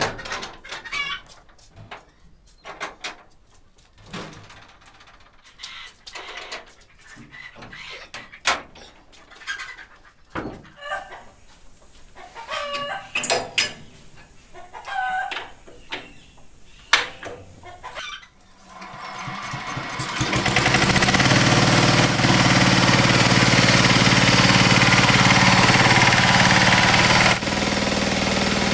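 Scattered knocks and clicks with chickens clucking, then about 19 s in the VST Shakti 130 DI power tiller's single-cylinder diesel engine starts, builds up over a couple of seconds and runs steadily, dropping a little in level near the end.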